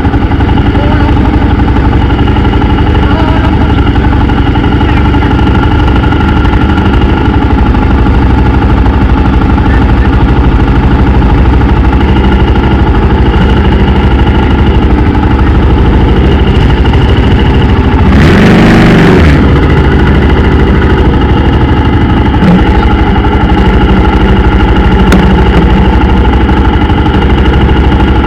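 Motorcycle engine running steadily and loudly, heard close up. About two-thirds of the way through it briefly surges louder, its pitch rising and then falling.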